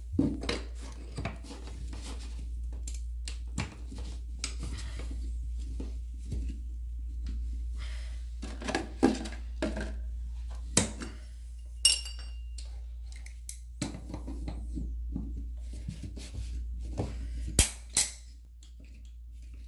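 Metal tools clinking and scraping as a compression-valve puller is worked on a toilet's compression shut-off valve on a copper supply pipe. There are scattered sharp metallic clicks and knocks, one ringing briefly about twelve seconds in.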